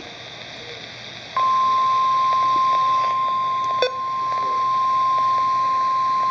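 Weather radio receiver hissing, then about a second and a half in a loud, steady, single-pitched alert tone starts and holds. This is the NOAA Weather Radio 1050 Hz warning alarm tone that signals a warning broadcast is about to follow. There is a brief click near four seconds in.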